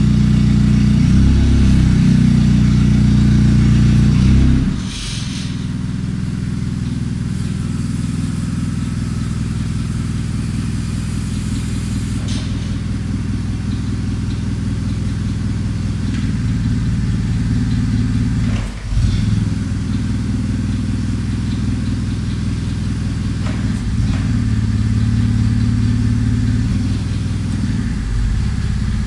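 Yale forklift's engine running, at a higher, louder speed for the first four seconds or so, then dropping and running steadily lower, with a few brief dips along the way.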